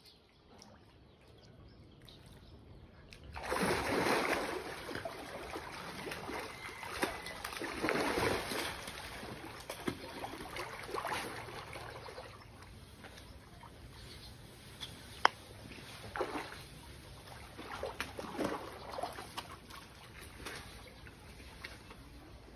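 Nile crocodiles in a farm pool making a series of noisy bursts, each a second or so long, the loudest about four and eight seconds in, with one sharp click near fifteen seconds.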